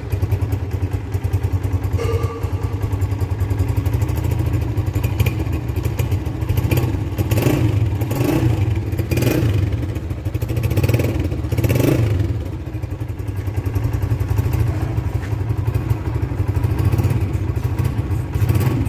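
Honda CG 125's single-cylinder four-stroke engine running steadily at idle, with a few short louder bursts near the middle.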